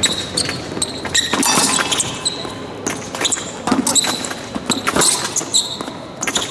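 Fencers' footwork during an épée bout: feet stamping and shoes squeaking on the piste in quick, irregular bursts, with sharp clicks among them.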